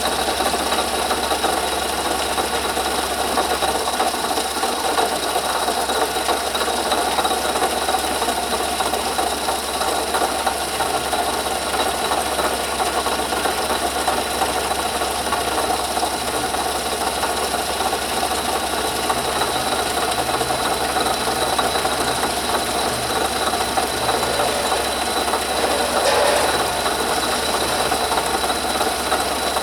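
Engine running with a loud, steady scraping and rattling from a bad water pump bearing, with a thin high whine over it: the bearing is failing and grinding inside the pump housing.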